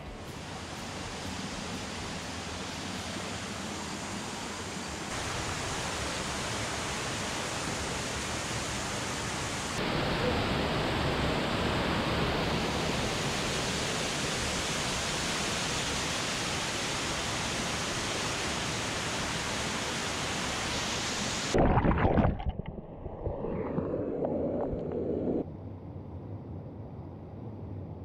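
Stream water rushing over rocks close by, a steady hiss that steps up and down in level a few times. About three-quarters through there is a short loud burst, after which the flow sounds much fainter.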